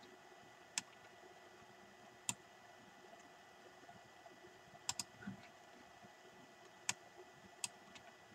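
Computer mouse clicking: six or so single sharp clicks spaced a second or two apart, with a quick double click about five seconds in, over faint room tone.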